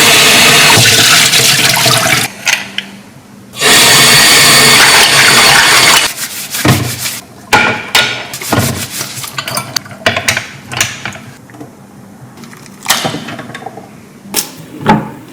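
Water gushing loudly from a tap in two bursts, the second starting after a short pause, then a run of scattered knocks and clatters.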